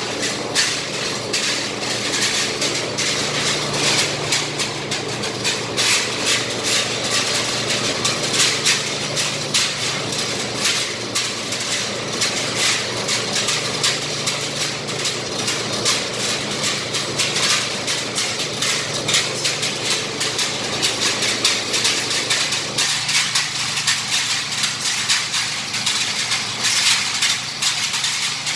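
A steady low machine hum under a continuous, irregular clatter of small knocks and rattles, in keeping with metal being handled on a scaffold.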